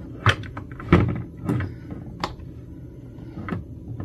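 About five separate sharp clicks and light knocks, spread unevenly over a few seconds, from an eyeshadow palette and makeup brushes being handled.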